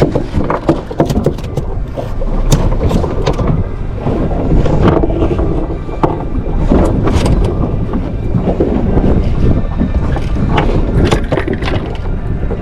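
Steady wind rumble on the microphone aboard a small fishing boat, with scattered short knocks and clicks.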